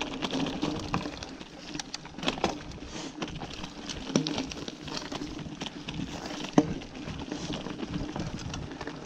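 Mountain bike rolling over a rough grassy trail: steady tyre and frame rattle with sharp knocks as it jolts over bumps, the loudest about six and a half seconds in.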